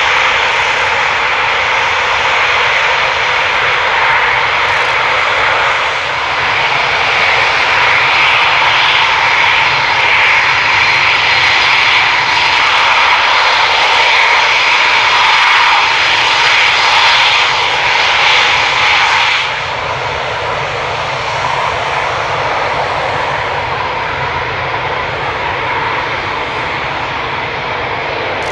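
Eurofighter Typhoon jet fighters taxiing, their twin EJ200 turbofans running with a loud, steady, high-pitched whine over a jet rumble. The sound drops a little in level and loses some of its whine about two-thirds of the way through.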